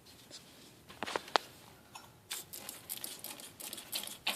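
Hand pump from a spray atomizer worked in quick, short strokes, sucking leftover water out of a faucet's valve seats. A couple of faint clicks come about a second in, and the strokes start in the second half and grow busier.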